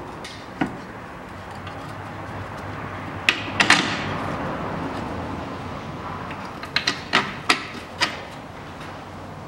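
Sharp metal knocks and clanks from hand work on a car's front suspension as the steering knuckle and its bolts are fitted to the strut: a cluster of knocks about three and a half seconds in, and a quick run of five knocks near the end.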